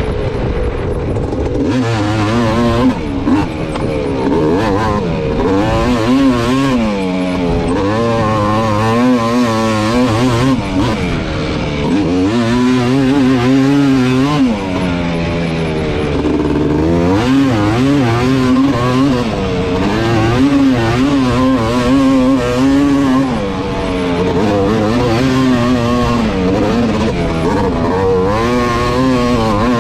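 Sport ATV's engine being raced hard, revving up and falling back over and over as the rider accelerates and backs off, the pitch swinging every second or two.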